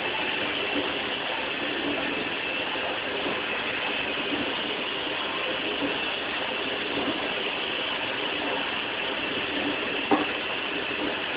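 Kitchen tap running steadily into the sink during hand dish-washing, with a sharp knock of a dish or utensil about ten seconds in.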